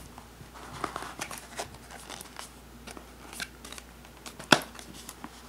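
Hands working a stiff paperboard product box open: faint scraping and rubbing of card, with one sharp snap about four and a half seconds in.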